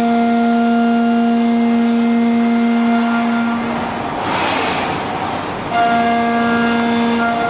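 High-speed milling spindle of a Huron KX 50 machining centre driving an end mill through an aluminium block: a steady, high-pitched cutting whine. Shortly past the middle the whine drops out for about two seconds, replaced by a rougher hiss, then picks up again.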